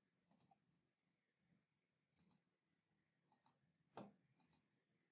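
Faint computer mouse clicks, most of them a quick press-and-release pair, a few times over several seconds, with one louder single click about four seconds in.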